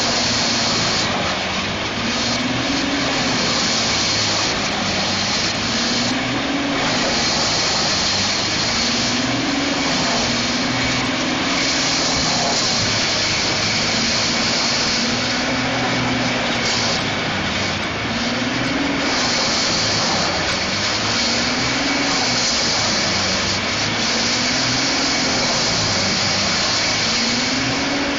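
Rayco horizontal grinder running loud and steady, with a hum that rises and falls in pitch about every two seconds over a constant noisy roar.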